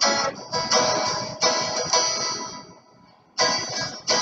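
Outro background music of repeated plucked chords, which dies away to a short pause about three seconds in and then starts again.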